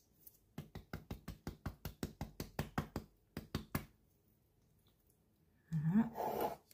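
Small plastic spice shaker shaken over a jug of flour: a quick run of light knocks, about six a second, lasting about three seconds. Near the end a person's voice is heard briefly.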